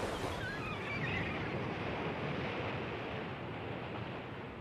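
Pacific Ocean surf breaking and washing up a beach: a steady rush of waves that slowly eases.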